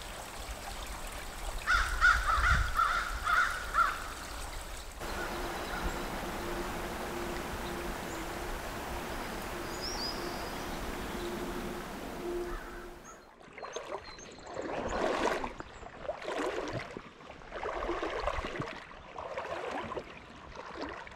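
A bird gives a rapid run of harsh, caw-like calls, then flowing river water rushes steadily. In the last third, the water swishes in uneven surges about once a second.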